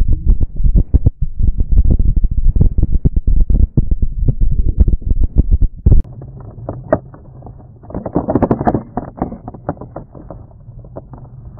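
Loud, rapid, irregular low thumping for about six seconds, typical of wind buffeting a bike camera's microphone. It then drops to a quieter steady hum, over which a Range Rover's tyre and engine noise swells as it passes close by the cyclist, peaking about two seconds later and fading.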